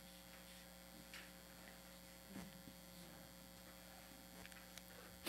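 Near silence: a steady electrical mains hum, with a few faint, brief ticks.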